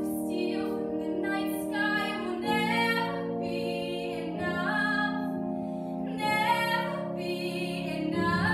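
A woman singing a solo musical-theatre song in a full, sustained voice over held accompaniment chords that change about every two seconds.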